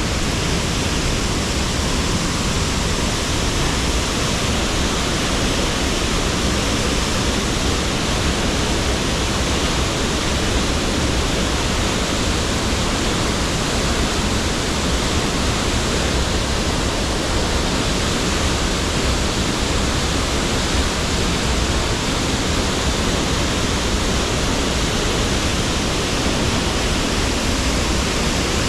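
Cascading waterfall, loud and steady: a constant rush of falling water.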